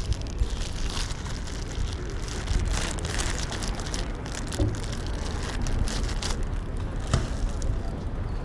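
Wind buffeting the microphone and tyre noise from a bicycle rolling downhill, with scattered crackles.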